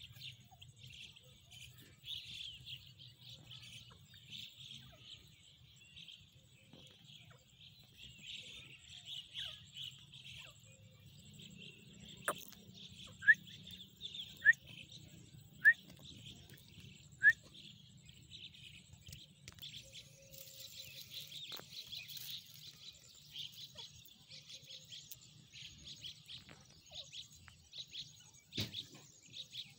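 Grey francolin giving four short, loud, upward-sweeping call notes, spaced about a second and a half apart, over a steady high chirring of insects. A brief thump comes near the end.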